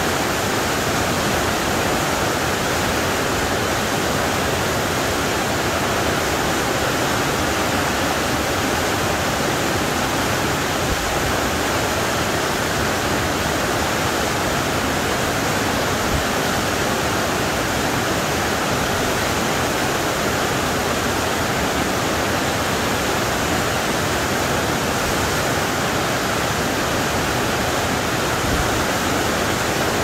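A waterfall rushing steadily, its water cascading down a rock face in a continuous even roar of spray and falling water.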